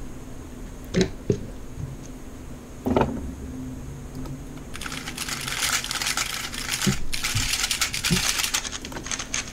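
Rubik's-type 3x3 speedcube being turned quickly by hand: a few separate clicks and knocks, then about five seconds in a dense run of rapid plastic clicks for about four seconds.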